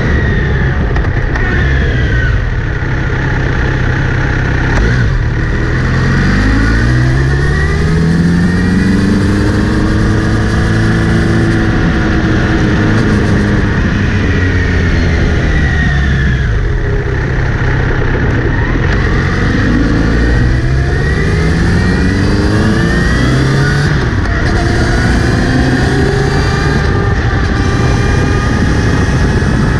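Kawasaki Z900RS inline-four engine running in gear, its pitch climbing and falling again several times as it accelerates and eases off, over a heavy low rumble. The bike has a whirring that comes on when accelerating or in gear, which the owner places at the front sprocket area although the chain is clean and correctly tensioned.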